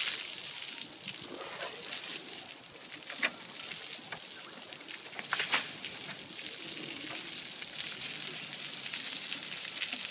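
Water spraying over an Asian elephant and splashing into a shallow concrete bathing pool: a steady hiss, with two brief louder splashes about three and five and a half seconds in.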